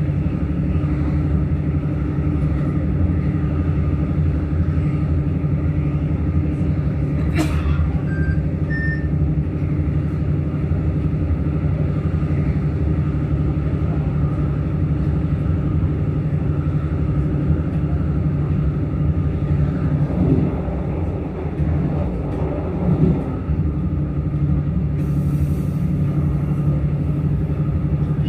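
Steady running rumble of a passenger train heard from inside the carriage as it rolls along the rails. There is a sharp click about seven seconds in, followed by a few brief faint high tones.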